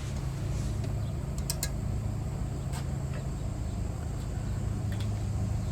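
Steady low hum of the gas griddle's burners running, with a few faint clicks of a spoon stirring garlic and onions in a pan.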